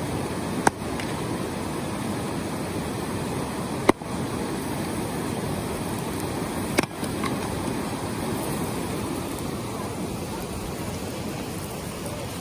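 Splitting axe striking firewood three times, about three seconds apart, each a sharp crack, over the steady rush of river rapids.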